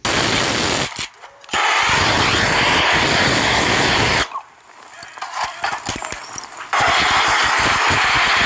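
Gas torch flame making a steady loud rushing hiss. It drops out briefly about a second in and runs quieter for a couple of seconds midway before coming back at full strength.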